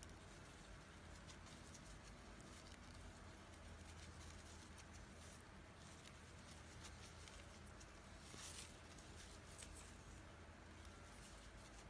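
Faint crinkling and scratching of raffia yarn being pulled through stitches with a crochet hook, with many small clicks and a slightly louder rustle about eight and a half seconds in.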